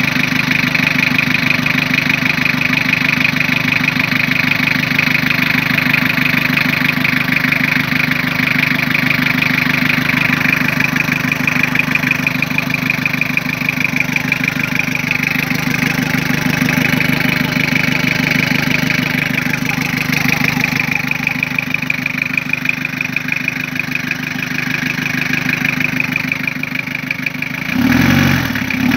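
Toyota 3L four-cylinder diesel engine idling steadily with a fast, even diesel clatter. Near the end the sound turns lower and uneven.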